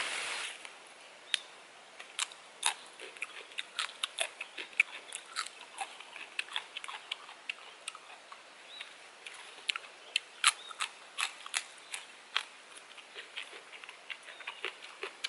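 Crisp, irregular snapping and clicking, a few snaps a second, of green pea pods being picked and split open by hand.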